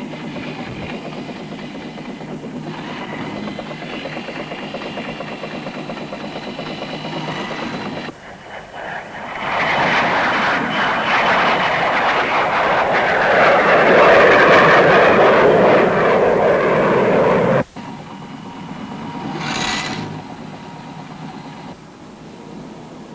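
Jet aircraft engine noise: a steady noise with a faint whine, then a louder swell from about ten seconds in that cuts off suddenly near eighteen seconds. A brief swell follows about two seconds later, and the noise then settles lower.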